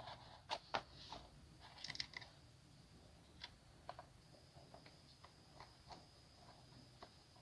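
Near silence with scattered faint clicks and light taps: two sharper ones in the first second, a small cluster about two seconds in, then only sparse faint ticks. A faint, steady high whine comes in about four seconds in.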